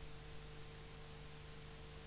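Steady hiss with a constant low electrical hum and a fainter higher hum tone: the background noise of a silent film transfer, with no sound events.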